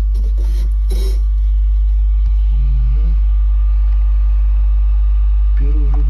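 A subwoofer driven by the amplifier plays bass-heavy music: a loud, steady deep bass throughout, with lower notes changing under it.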